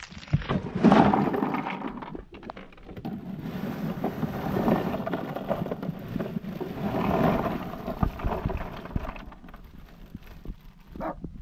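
Ice cubes poured from a plastic bag into a plastic cooler of drinks, the ice clattering and the bag crinkling. There is a loud burst about a second in, then a longer spell of pouring that dies down near the end.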